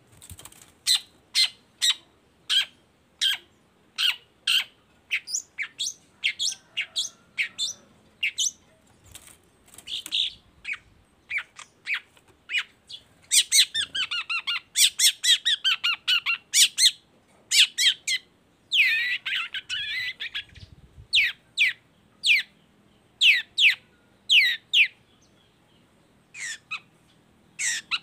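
Long-tailed shrike (cendet) singing: a string of sharp, quickly falling whistled notes, one or two a second, broken by two spells of rapid chattering a little before and after the middle.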